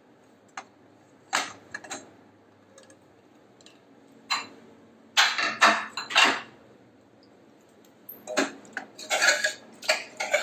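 Aluminium pressure cooker being opened once its pressure has fully gone down: light metal clicks, then a cluster of loud clanks about five seconds in as the lid comes off. Near the end a spoon clinks and scrapes against the pot as the cooked beef is stirred.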